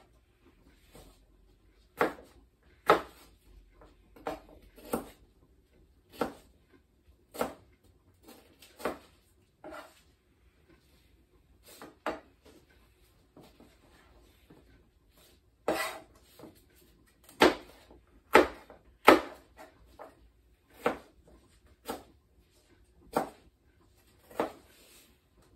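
Kitchen knife chopping sweet pepper on a cutting board: single sharp knocks of the blade on the board, about one a second at an uneven pace, the loudest a little past the middle.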